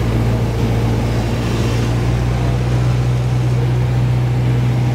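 The piston engine and propeller of a single-engine light aircraft, heard from inside the cockpit in flight, making a steady, unbroken low drone.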